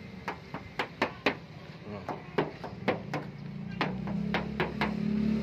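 Knuckle taps on the steel body panels of a 2005 Toyota Kijang Innova, several quick knocks a second in short runs. It is a dealer's check for body filler or earlier repair, with the body said to be still all original metal.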